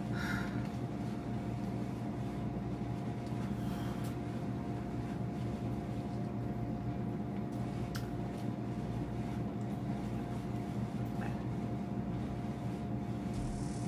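Steady machine hum with a clear steady tone running under it, and a few faint short clicks of mouth sounds while chewing a bite of fried chicken.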